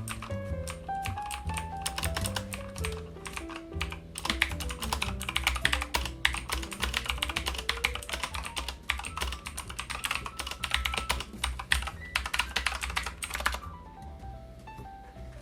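Fast typing on a mechanical keyboard with Outemu Blue switches, tactile and clicky, a dense run of sharp key clicks that stops near the end. Background music plays underneath.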